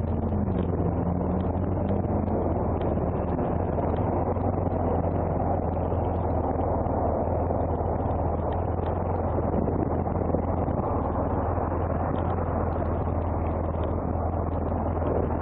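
BMW F800ST's parallel-twin engine idling steadily as the motorcycle sits stopped, after the revs fall away in the first second or so as it rolls to a halt.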